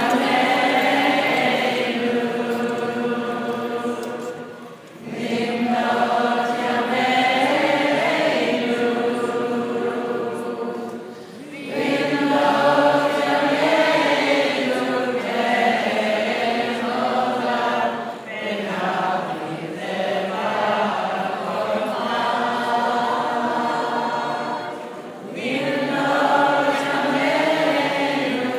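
A group of voices singing together in long, held phrases of several seconds each, with short breaks for breath between them.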